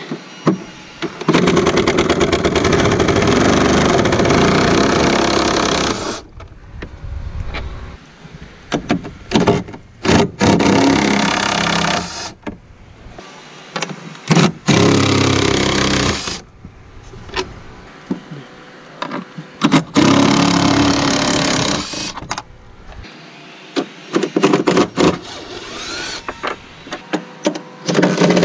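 Cordless impact driver running in several long bursts of a few seconds each, with pauses and clicks between, spinning the fasteners on the truck's airbox housing.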